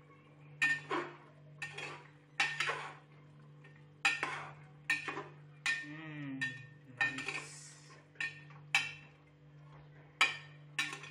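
Metal ladle stirring and scraping chicken in a large aluminium pot, about a dozen irregular clinks and scrapes against the pot's sides, with brief ringing. The chicken is partly cooked for biryani.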